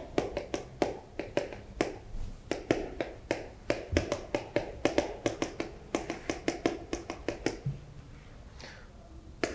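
Chalk tapping on a chalkboard while characters are written: a rapid run of sharp clicks, about five a second, that stops about seven and a half seconds in.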